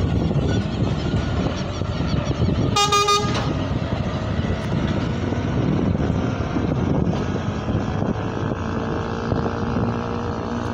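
Scania semi-truck with a refrigerated trailer driving slowly past, its diesel engine running, with one short horn toot about three seconds in.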